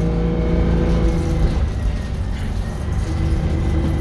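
Detroit Diesel 6V71N two-stroke V6 diesel running as the bus is under way, heard from inside the passenger cabin. The engine note changes about a second and a half in and settles on a new steady tone about three seconds in.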